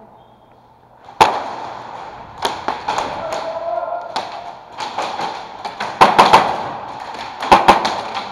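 Airsoft gunfire at an indoor field: sharp snaps of shots and BBs cracking against plywood barricades, single and in quick strings of three or four. The loudest crack comes about a second in, with two tight clusters near the middle and near the end.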